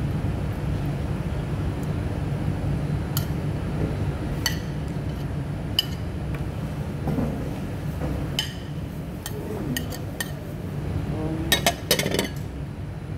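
A metal fork clinking and scraping against plates, in scattered sharp clinks with a quick run of them near the end, over a steady low room hum.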